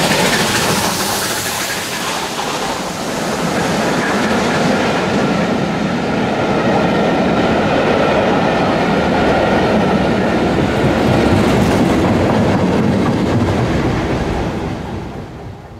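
Bulleid Battle of Britain class three-cylinder steam locomotive 34067 Tangmere passing close while hauling a loaded train up the bank, followed by its coaches running past. The sound is loud throughout and fades near the end as the train draws away.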